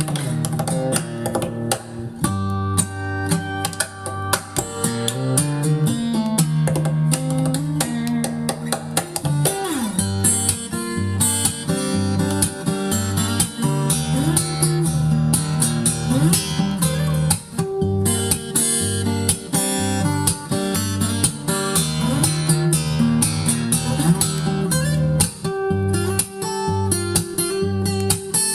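Guitar-led music with a repeating bass line, played back from a vinyl record on a Lehnert PS 907 turntable with a Shure M75-6S cartridge.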